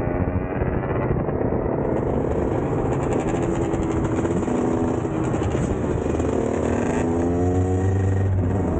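Two-stroke dirt bike engines running and revving, their pitch rising and falling, over a steady rush of riding noise.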